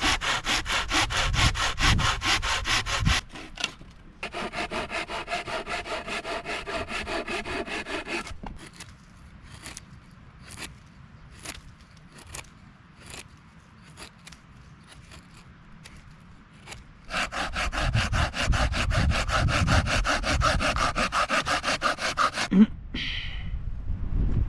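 Handsaw cutting elderberry wood in rapid back-and-forth strokes. A short break comes around 3 s, then the sawing resumes. From about 8 s to 17 s there are only scattered light ticks and clicks, before sawing starts again and stops near the end.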